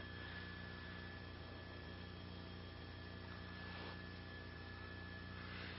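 Faint steady electrical hum with a thin, steady high whine on the open radio/broadcast audio line, with no voices.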